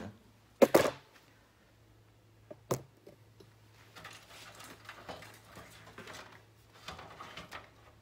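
A computer power supply knocking twice into the steel bottom bay of a PC case as it is pushed into place, then a single sharp click about two seconds later. Faint clicking and rustling of handling follows.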